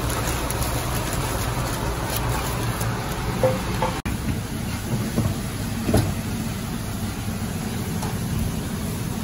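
Steady low hum of kitchen machinery with a few faint clinks; the sound cuts out for an instant about four seconds in.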